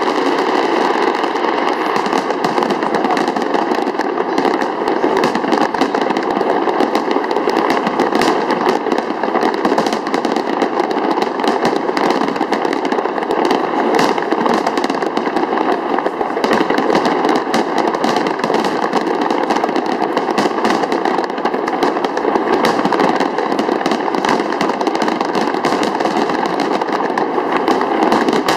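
Fireworks display: a dense, continuous rattle of bursting shells and crackling, many reports a second with no pause.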